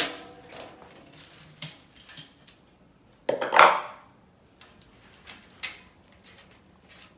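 Metal bicycle tools clinking and clanking on a cassette as its lockring is loosened with a chain whip, lockring tool and adjustable wrench. There is a sharp clank at the start, scattered clicks, and a louder rattling metallic burst a little over three seconds in.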